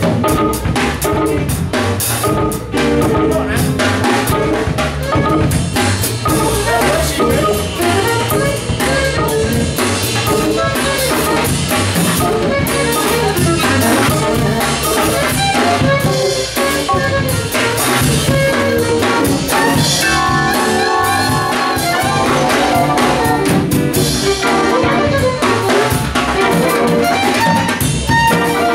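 Live instrumental jazz-funk combo playing a steady funk groove: drum kit, electric bass, keyboards and violin together.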